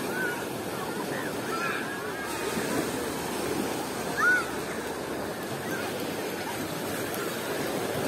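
Small Sea of Azov waves washing steadily on the beach, with faint distant voices of people on the shore. A brief high call stands out about four seconds in.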